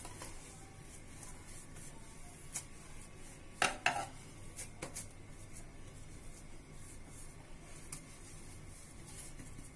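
Faint handling sounds of hands pressing and shaping mashed-potato tikki dough on a wooden board, with a few light knocks a few seconds in, over a faint steady hum.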